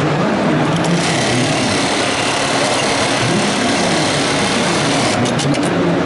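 Zoje computer-controlled pattern sewing machine running, stitching a hook-and-loop strip held in its clamp, over a steady mechanical din. A few sharp clicks come about five seconds in.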